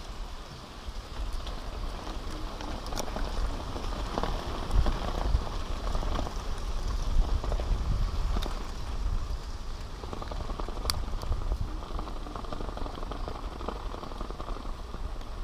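Low rumble of wind on the microphone over light crackling and a few small clicks from hands handling fishing line, a plastic line frame and a freshly caught giant river prawn.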